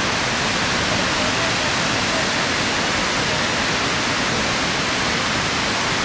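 Steady, even rush of Shiraito Falls, a curtain of many thin streams pouring down a cliff.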